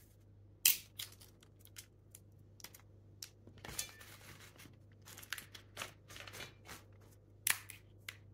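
Dry, brittle shells of sweet tamarind pods cracking and crackling as they are peeled by hand, in irregular sharp snaps with some rustling; the loudest snaps come just under a second in and near the end.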